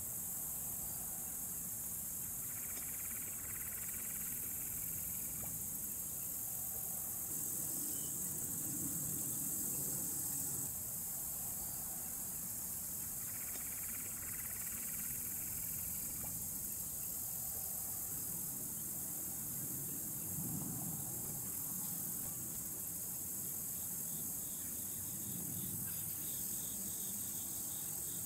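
Steady high-pitched chorus of insects, with a faint low rumble that swells and fades now and then.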